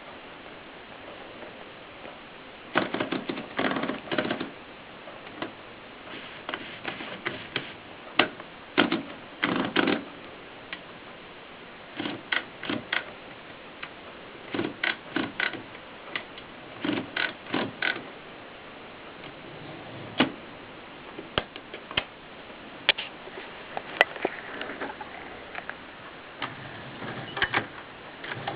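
Adler Tippa portable typewriter mechanism clicking and clattering in irregular clusters of sharp clicks, with pauses between runs.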